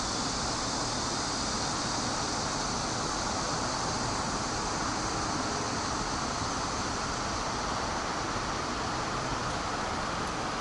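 Steady outdoor ambient noise, an even hiss with no distinct events.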